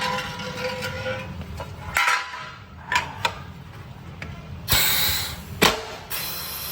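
Aluminium-profile 14-die punch press being worked: scattered clicks and knocks over a low hum, then about five seconds in a burst of air hiss and one sharp, loud clack, followed by more hiss.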